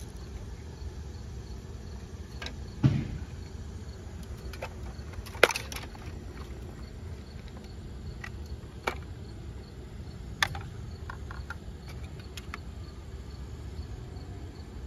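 Scattered sharp clicks and knocks of a screwdriver and hands working on parts inside a steel PC tower case while removing its expansion cards, over a steady low rumble.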